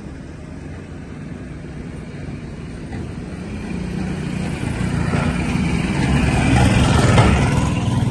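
A motor vehicle's engine steadily getting louder as it approaches, loudest about seven seconds in, then beginning to fade.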